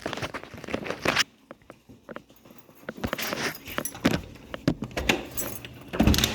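Light metallic jangling and rustling with scattered sharp clicks and knocks.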